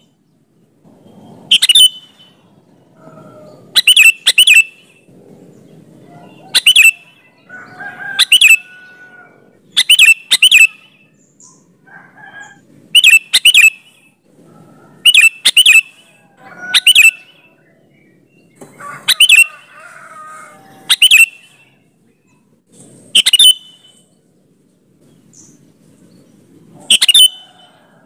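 Sooty-headed bulbul (kutilang) calling: short, sharp, very loud notes, singly or in quick pairs, repeated every second or two, with softer calls in between.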